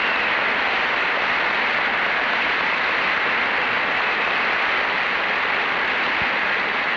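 Audience applauding: dense, steady clapping at an even level.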